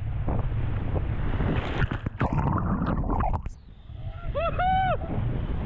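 Whitewater rushing around a kayak surfing a Colorado River rapid, with wind buffeting the microphone. The rush drops away briefly about three and a half seconds in, then a person lets out about three short whooping calls that rise and fall in pitch.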